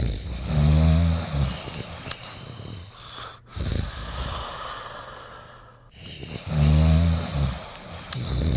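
Snoring in slow cycles: a loud, low snore about half a second in and again about six seconds later, with quieter breathing between.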